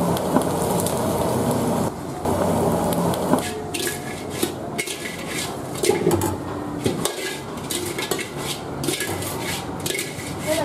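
Steady frying noise from a steel wok of hot oil for the first few seconds. Then rapid metal clanking and scraping as the wok and a metal utensil knock together while fried chicken feet are tossed in it.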